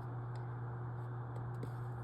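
Room tone: a steady low electrical hum with a faint hiss, and a couple of faint ticks.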